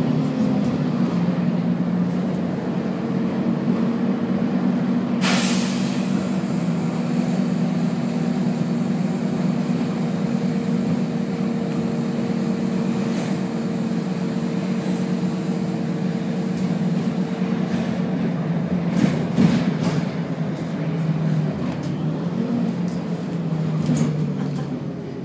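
Volvo B10BLE bus with Voith automatic gearbox running steadily under way, its engine note shifting slightly. A short burst of air hiss comes about five seconds in, and a few sharp knocks come around three-quarters of the way through.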